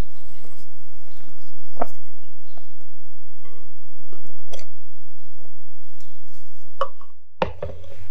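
Wire balloon whisk folding meringue into a thick chocolate batter in a glass bowl: wet, sticky mixing sounds with a few sharp clinks of the whisk against the glass. The sound drops out briefly about seven seconds in.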